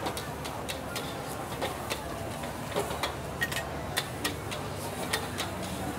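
Metal ladle clacking and scraping against a steel wok while minced pork is stir-fried over a high gas flame, in sharp irregular strikes about twice a second over a steady hiss.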